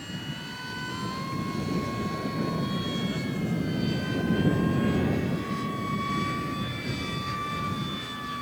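Radio-controlled model plane in flight, its motor giving a steady high whine with a whoosh of air that swells to its loudest about halfway through as it passes, then eases off.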